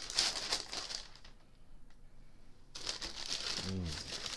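Tissue wrapping paper rustling and crinkling as a new sneaker is unwrapped from its shoebox, in two stretches with a short pause between them.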